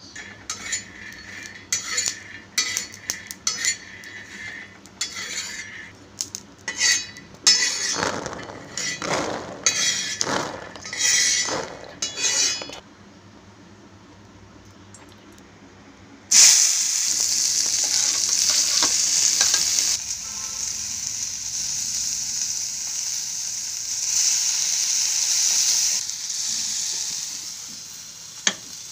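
Peanuts rattling and a spatula scraping as they are dry-roasted and stirred in a pan, in short irregular strokes. After a quiet spell, a loud steady sizzle from the pan starts suddenly a little past halfway and runs on, easing near the end.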